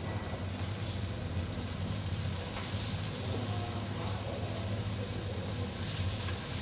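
Flour-dusted seitan slices sizzling steadily in hot olive oil in a stainless steel pan, with light scrapes of a wooden spatula as they are turned, over a low steady hum.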